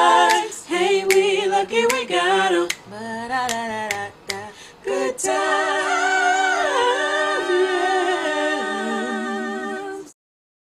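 Soundtrack song: a cappella singing, with long held notes in the second half, that cuts off suddenly near the end.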